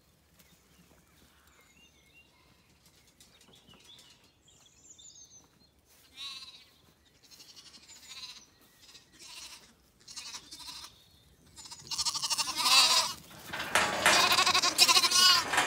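Zwartbles lambs bleating: a few scattered calls begin about six seconds in, then many loud, overlapping bleats in the last few seconds as the lambs crowd in close.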